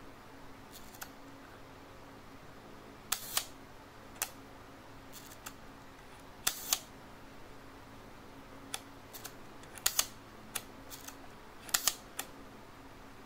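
Compur leaf shutter of a vintage Rolleicord twin-lens reflex being cocked and fired by hand: a series of sharp mechanical clicks, several in close pairs a fraction of a second apart, with a few softer single clicks between.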